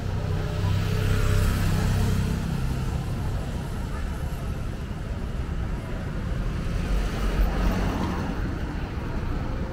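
Street traffic: a vehicle engine hums past in the first two seconds or so, and a taxi passes close near the end with a low rumble.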